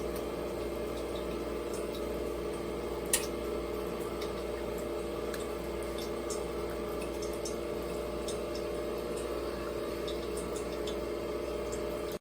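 Nespresso Vertuo Next coffee machine brewing: a steady motor hum with faint drips of coffee running into the cup, and one sharp click about three seconds in.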